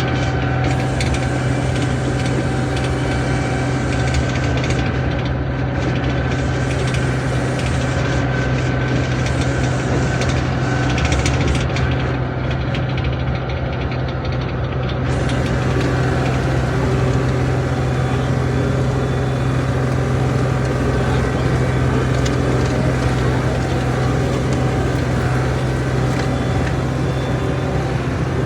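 John Deere 250 skid steer's diesel engine running steadily with a constant drone, heard from aboard the machine.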